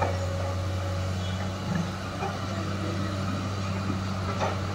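JCB 210LC tracked excavator's diesel engine running steadily under load as the bucket digs in water and mud, with a couple of brief knocks, one at the start and one about four and a half seconds in.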